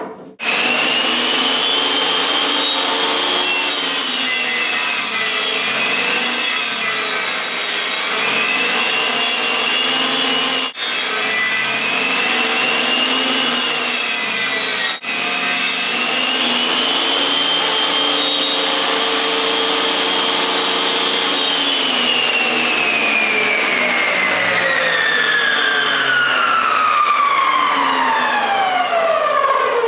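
Table saw running and cutting a shallow decorative groove along a pine 2x4, its high whine wavering as the board is fed through. About two-thirds of the way in the whine starts falling steadily in pitch as the blade spins down.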